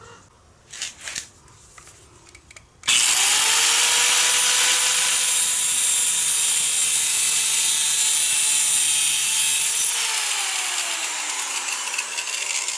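Electric angle grinder switched on about three seconds in, its motor whining at a steady pitch under a loud hiss while it cuts a notch in a steel lock washer held in a vise. About ten seconds in it is switched off and the whine falls steadily in pitch as the disc spins down.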